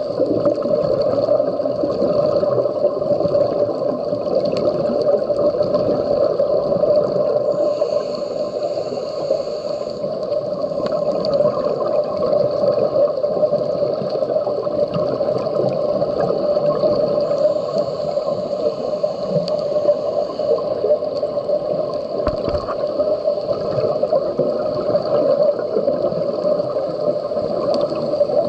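Steady, muffled underwater noise heard through an action camera's waterproof housing on a reef dive, with a few faint clicks.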